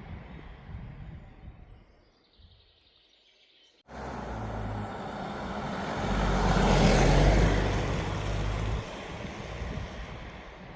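A road vehicle passing by, its noise swelling and then fading away over a few seconds.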